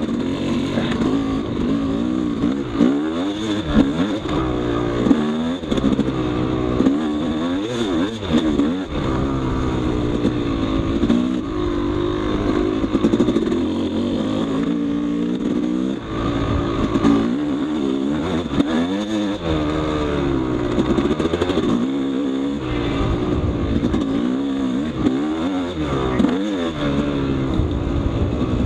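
Yamaha YZ250 two-stroke dirt bike engine being ridden on a trail, its pitch rising and falling every second or two as the throttle is opened and closed.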